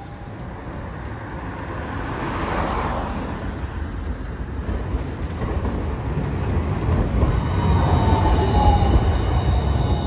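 A Hiroden Green Mover LEX low-floor tram approaching and passing close on street track, its rumble growing louder. A thin, slightly falling whine comes in over the rumble around three-quarters of the way through, and there is a swell of noise a couple of seconds in.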